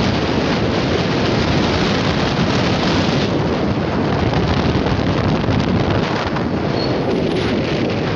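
Wind buffeting the phone's microphone: a loud, steady rushing noise that drowns out everything else.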